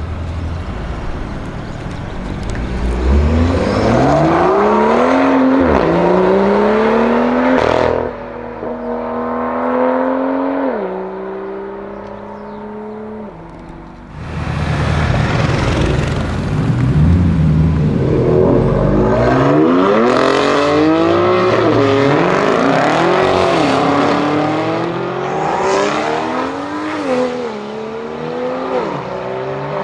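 BMW M2 F87's turbocharged straight-six through an Armytrix exhaust, pulling hard twice. Its note climbs and steps back at each shift, then drops in steps as it slows, before the second run.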